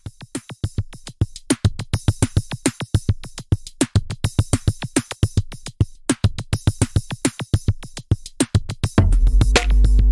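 Electronic background music: a steady drum-machine beat of short kicks and hi-hats. About nine seconds in, a louder sustained deep bass and synth chords come in under the beat.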